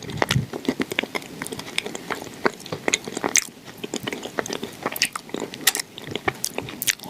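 Close-miked biting and chewing of something dry and crumbly: a dense run of sharp, irregular crunches and crackles.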